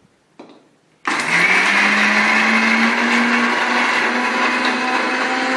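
Electric mixer grinder switching on about a second in and running steadily, grinding fried peanuts, chillies, tomato, onion and garlic into chutney paste. Its hum rises slightly in pitch as the motor comes up to speed, then holds.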